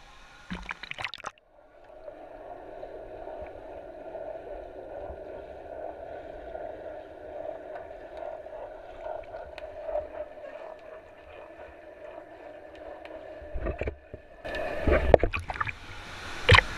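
Swimming-pool water heard through a waterproof action camera: a brief splash as it goes under, then a muffled, steady underwater rush for most of the time, and louder splashing and sloshing near the end as it is back at the surface.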